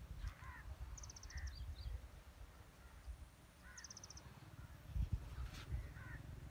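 Faint bird calls: two short, very fast high-pitched trills, about a second in and again near four seconds, among scattered lower chirps, over a low rumble.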